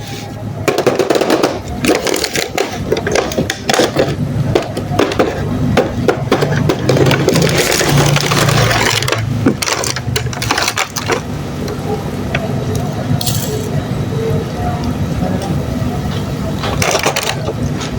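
Handling of diecast toy cars and their packaging: many quick clicks, knocks and clinks, densest over the first ten seconds or so, then sparser over a steadier background.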